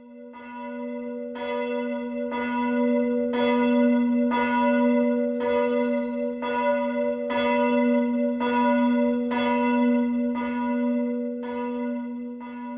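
A single church bell, the Karl Immer bell, ringing alone as it swings, struck about once a second. Its low tone carries on between strokes.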